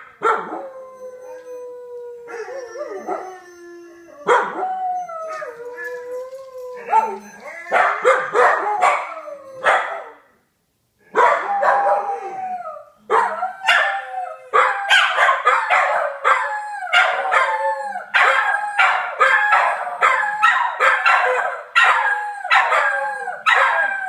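Corgis howling: long, wavering howls at first, then a fast, dense string of yelping bark-howls from about eight seconds in, with a second's break near the middle.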